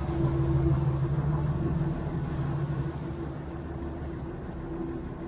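Tour boat's engine running with a steady hum, getting quieter about three seconds in.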